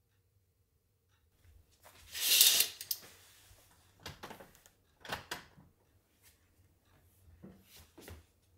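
A person moving through a curtained doorway: a loud, brief rustling swish about two seconds in, then scattered knocks and clicks of handling and footsteps.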